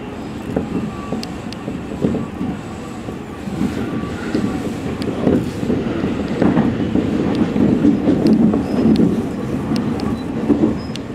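Commuter electric train running on jointed track, heard from inside the driving cab: a steady wheel rumble with scattered clicks and clacks. It grows louder from about six seconds in as the train crosses station points and an oncoming train passes close alongside, then eases near the end.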